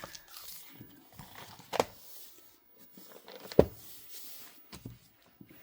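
Handling noise with two sharp knocks, the second one louder, about two seconds apart, and a few lighter taps between them.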